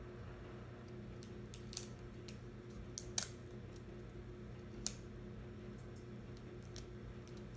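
Origami paper being folded and creased by hand: a few short, faint crinkles and taps, the sharpest about three seconds in, over a steady low hum.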